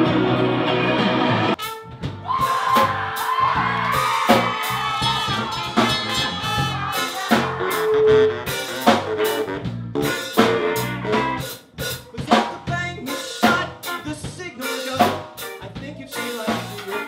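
Live band music. Guitar-heavy rock cuts off about a second and a half in, replaced by a song with a busy drum kit under a trumpet line.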